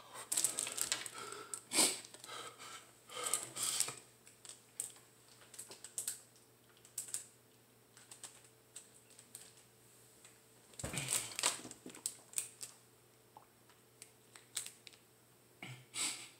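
Thin plastic water bottle crinkling and crackling as it is gripped and drunk from. The crackles come in clusters during the first few seconds and again about eleven seconds in, with scattered clicks between.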